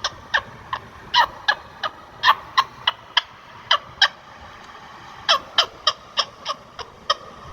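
Indian ringneck parrot giving a series of short, sharp, shrill calls, about three a second, with a pause of about a second midway before the calls resume.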